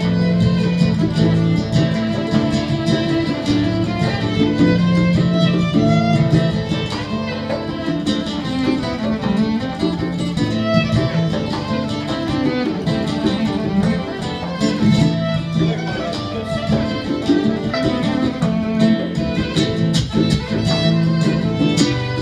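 Violin and nylon-string acoustic guitar playing together live.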